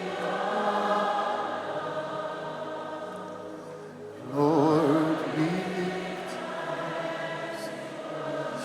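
Slow worship music with a choir singing long held notes. About four seconds in, a louder, wavering vibrato tone comes in over it for about a second.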